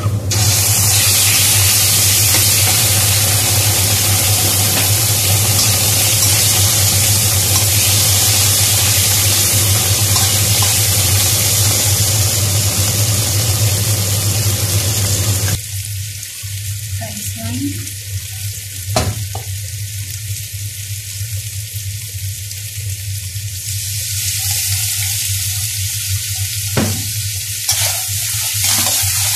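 Marinated chicken fillet pieces hitting hot oil with garlic and ginger in a stainless steel wok and sizzling loudly, then stir-fried with a metal spatula. The sizzle drops lower about fifteen seconds in, with a few sharp scrapes of the spatula against the wok near the end, over a steady low hum.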